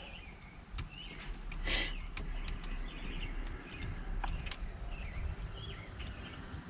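Birds chirping in the background while a few sharp clicks and one brief rustling scrape come from parts being handled, the scrape a little under two seconds in.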